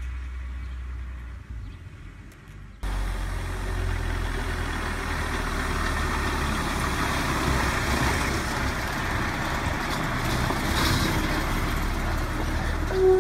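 Truck engine running on the road, with a low rumble and road noise that steps up sharply about three seconds in and swells around ten seconds in. A short pitched tone sounds right at the end.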